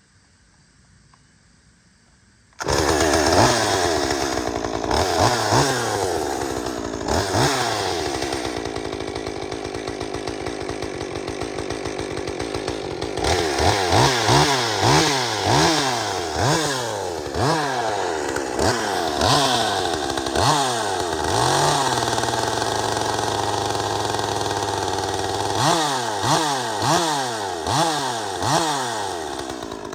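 Small two-stroke chainsaw, the 201 just repaired for a busted oil line, starting up about two and a half seconds in and then being revved over and over in quick blips. Partway through it drops to a steady idle for a few seconds, then is revved again in another run of blips.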